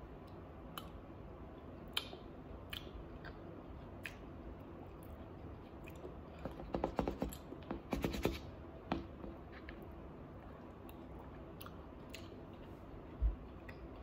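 Quiet chewing, with a metal spoon clicking and scraping against a bowl, most busily in a quick run of clicks in the middle. There is a single dull thump near the end.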